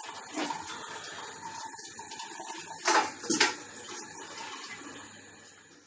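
Wort running and dripping out of a lifted brew-in-a-bag grain bag back into the stainless mash pot, a steady trickle with two brief louder surges about three seconds in.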